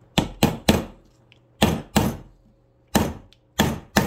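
A mallet striking a socket seated on a bolt in a Husqvarna 394XP chainsaw crankcase, working it against a stubborn old fastener: about eight sharp blows in short groups of three, two, one and two.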